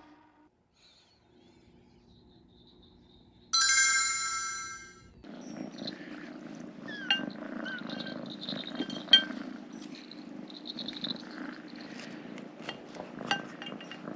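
A bright chime rings and fades over about a second and a half. Then a munchkin kitten is heard close up: a steady purr-like rumble with many small clicks and a few short high squeaks.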